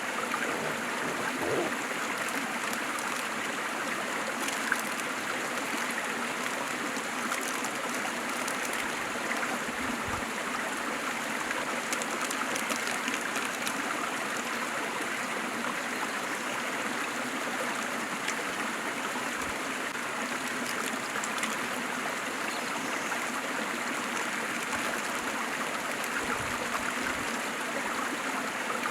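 Waterfall and stream water splashing and rushing steadily, an even, unbroken wash of sound.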